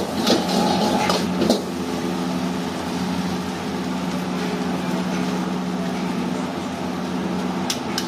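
A metal spatula scrapes and knocks against a wok for about the first second and a half, then a steady mechanical hum carries on alone, with a couple of metal clinks near the end.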